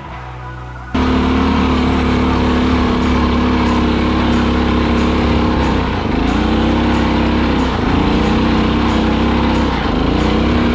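Rokon Trail-Breaker 2x2 motorcycle's 7 hp Kohler engine running under load, heard close from the handlebars, starting about a second in. Its speed dips and comes back up three times.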